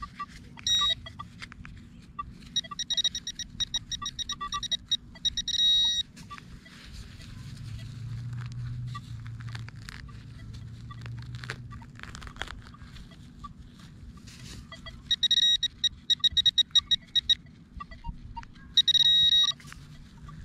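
A handheld metal-detecting pinpointer beeping in fast runs of high-pitched chirps, in four bursts, as it is worked over a target in a dig hole. Short fainter lower blips come between the bursts.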